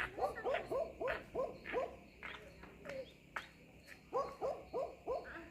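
Young ducks calling: a string of short, repeated peeping calls, several a second, thinning out in the middle and picking up again near the end.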